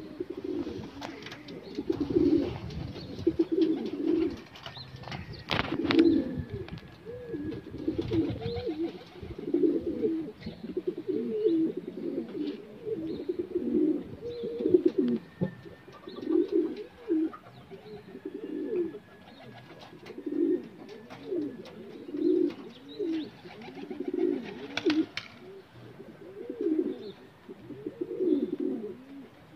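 Pigeons cooing, one low warbling coo after another every second or two.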